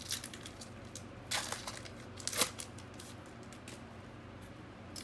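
Trading card pack wrapper being torn open and handled: two short crinkly rips, about a second and a half and two and a half seconds in, the second ending in a sharp snap.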